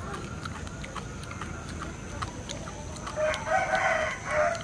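A rooster crowing once, starting about three seconds in and lasting about a second and a half.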